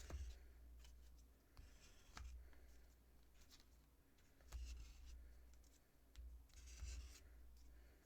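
Faint rustling and light tapping of trading cards being handled and put aside, in a few short spells with small clicks between.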